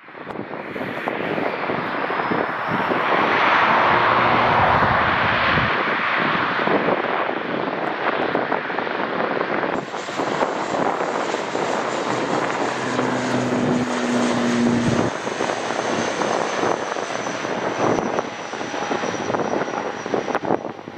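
Airliner engines running loud as the aircraft passes, loudest a few seconds in and then holding steady, with a thin high whine over the noise.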